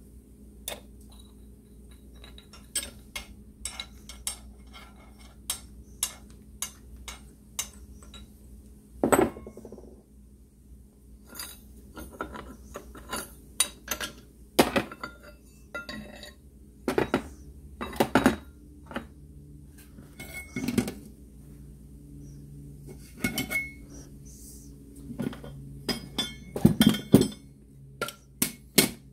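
Metal clutch parts and hand tools clinking and clattering in irregular, separate knocks as a Moto Guzzi clutch is taken apart, with the loudest clanks about 9, 18 and 27 seconds in.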